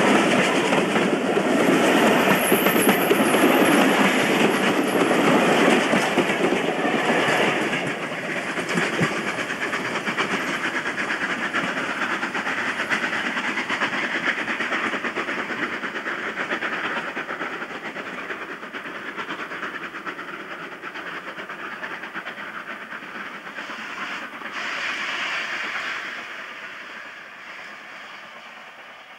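Steam-hauled train of coaches passing close by, the carriage wheels clicking over the rail joints, then fading steadily as the train draws away, with a brief swell near the end.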